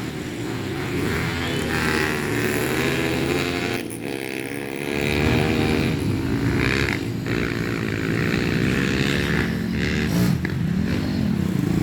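Trail motorcycle engines racing, the revs rising and falling through throttle changes, with a short lift-off of the throttle about four seconds in.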